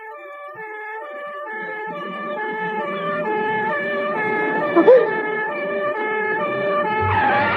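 Two-tone police car siren alternating between a high and a low note, growing steadily louder as the car approaches. It is interrupted by a short sharp sound about five seconds in and a burst of noise with a thud near the end.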